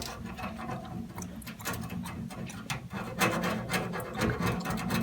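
A coarse scrubbing pad rubbed hard back and forth over the metal toolbox, giving an irregular run of scratchy strokes over a steady low hum.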